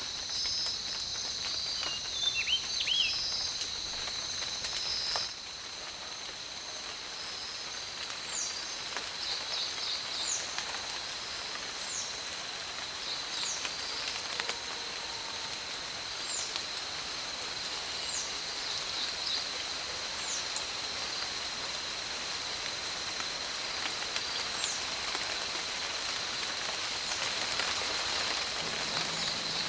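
Forest ambience: an insect drones on one steady high note while a bird repeats a short, high, falling whistle every second or two from about eight seconds in, over a steady hiss. A few lower chirps come a couple of seconds in.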